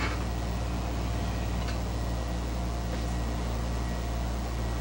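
Room tone: a steady low hum with a faint hiss and a couple of faint clicks.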